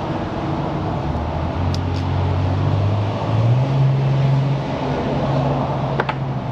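A motor running with a steady low hum that steps up in pitch about three seconds in, over a constant hiss; a short click near the end.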